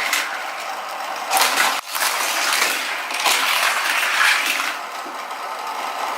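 Battery-powered spinning booster wheel of a Cars 3 Thunder Hollow Criss-Cross toy track set whirring, with a die-cast toy car clattering along the plastic track.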